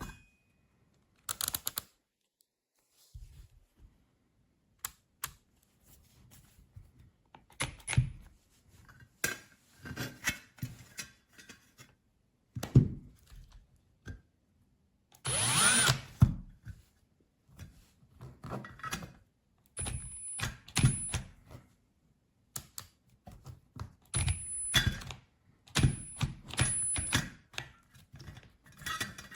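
A cordless drill/driver running in short bursts, one a little longer with a rising whine, mixed with clunks and clicks of metal tool parts being handled.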